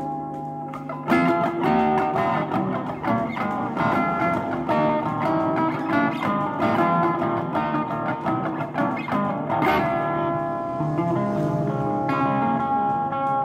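Stratocaster-style electric guitar, plugged in and picked. A held note gives way about a second in to a sharp attack and a run of quick single-note lines.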